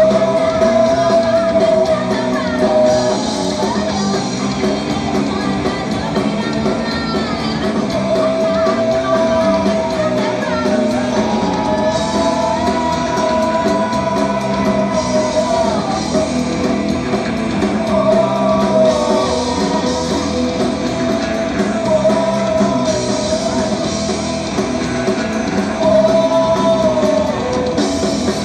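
Live rock band playing loudly: hollow-body electric guitars through amplifiers and a drum kit, with sung melody lines over the top.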